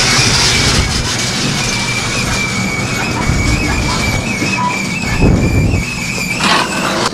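Overhead sectional garage door rolling up along its tracks, a loud steady rattle with a high squeal running through it, stopping about six and a half seconds in. A few low knocks come partway through.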